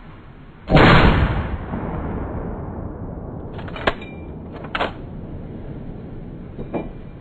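A sudden loud bang about a second in that dies away over a couple of seconds, followed by a few sharp, short cracks later on, over steady outdoor background noise.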